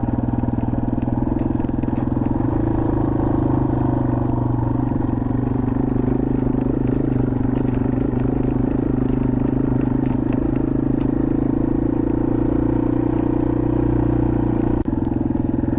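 2021 Yamaha TW200's single-cylinder four-stroke engine running steadily while riding, with one brief dip near the end.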